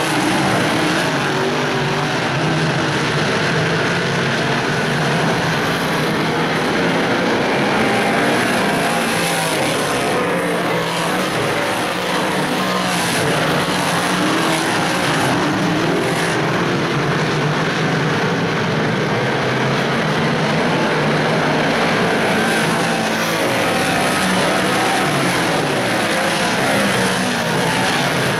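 Big Block Modified dirt-track race cars running laps together, their big-block V8 engines making a continuous loud drone with pitches that shift as the cars pass.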